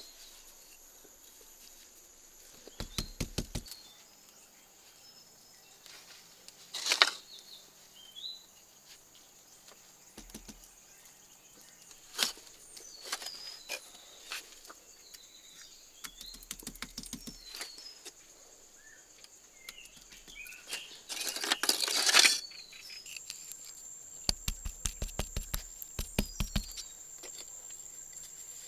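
Hand work with mud plaster and broken terracotta tile pieces: scattered clicks, short clattering runs and scraping, busiest a little past the two-thirds mark, over a steady high-pitched insect drone.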